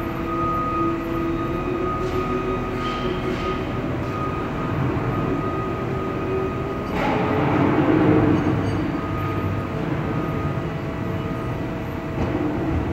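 Steady machinery noise with several constant whining tones, swelling louder for a second or so about seven seconds in.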